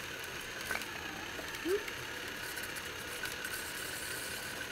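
Cordless drill motor running steadily, turning an aluminium filament spool as 3D-printer filament winds onto it, with a short rising squeak a little under two seconds in.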